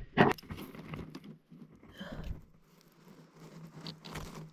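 Flint and steel being struck to throw sparks onto fire-lighter: a loud scrape near the start, then several fainter scraping strikes.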